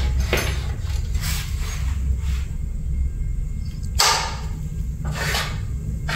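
Side extension wing of an Erbauer EMIS254C mitre saw being slid out on its metal rods: several short sliding, scraping swishes, the loudest about four seconds in, over a steady low hum.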